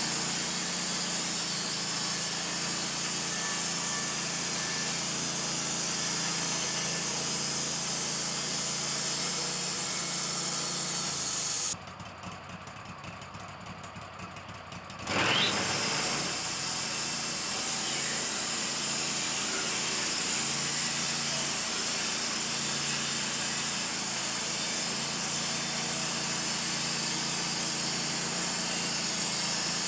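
Wood-Mizer LT-15 portable band sawmill running steadily, engine and band saw sawing a spruce log. About halfway through, the sound drops away abruptly for about three seconds, then comes back with a quick rising whine.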